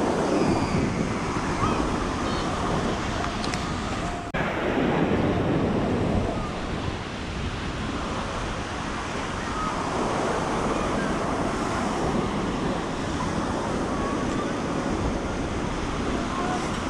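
Ocean surf breaking and washing up on a sandy beach, heard as a steady wash of noise, with wind buffeting the microphone.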